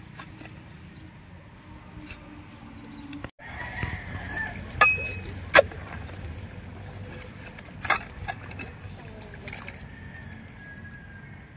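Wet mud sloshing and squelching as a metal pipe is worked into tidal-flat mud and a hand digs into the hole after a peanut worm. A few sharp clicks stand out, the loudest about five seconds in and another near eight seconds.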